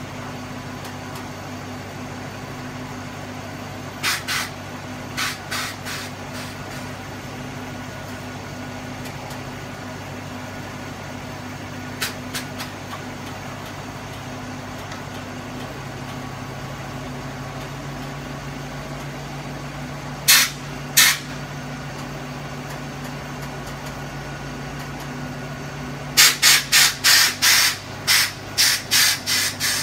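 Ford big-block FE V8 idling steadily while the bus's air-ride suspension valves let out short, sharp bursts of air hiss as the switches are hit: a few after about four seconds, a couple more in the middle, then a quick run of a dozen or so near the end.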